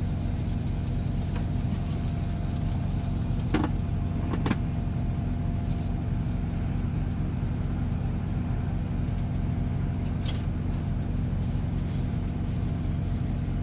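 Steady low hum of a semi truck's idling diesel engine heard from inside the cab, with two light clanks at about three and a half and four and a half seconds in as the electric skillet's lid is set on.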